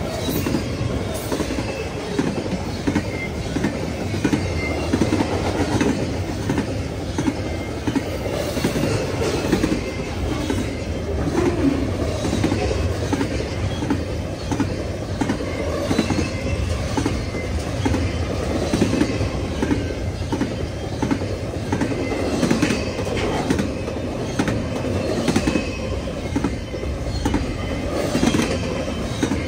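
Long freight train's cars rolling past: a steady rumble of steel wheels on rail with rapid, irregular clicking as wheels cross rail joints.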